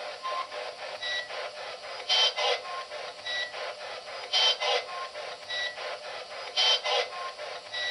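Ghost-hunting spirit box sweeping through radio static: hiss chopped into quick, even clicks with short beeps. A brief noisy fragment repeats about every two seconds, a looped replay of a response the investigators hear as "sí, ¿por?".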